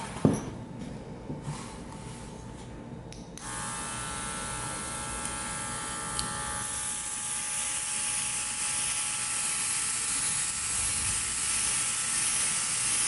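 A sharp knock about a quarter second in and a couple of light clicks, then about three seconds in a cordless mini airbrush compressor switches on and runs with a steady high-pitched whine, with air hissing out through the single-action airbrush as it sprays paint.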